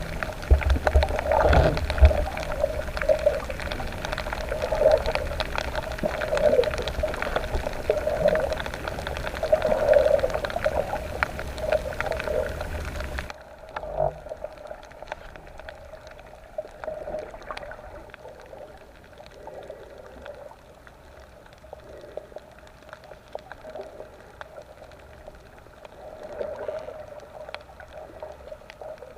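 Muffled underwater sound of a dive: gurgling and bubbling water with a low rumble, as heard through a camera underwater. About halfway through, the hiss and rumble drop away and it goes quieter.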